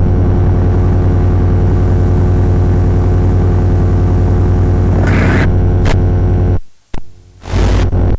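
Piper light aircraft's piston engine running at a steady, even pitch. Near the end it cuts off abruptly, leaving short bursts of rushing noise.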